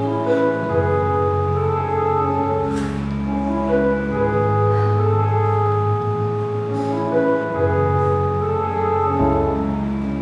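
Slow background music of long, held keyboard chords over a sustained bass, changing chord every one to two seconds.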